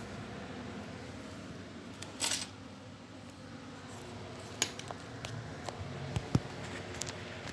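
Handling noise: a short scraping rasp about two seconds in, then scattered sharp clicks and knocks over the last three seconds.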